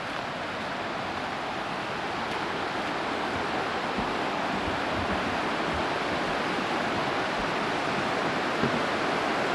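Rushing river rapids, a steady wash of water that grows gradually louder, with a few dull footfalls on the wooden planks of a footbridge partway through.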